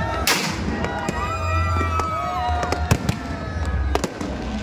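Fireworks and firecrackers going off in an irregular string of sharp cracks, with a bigger hissing burst just after the start, over people's voices.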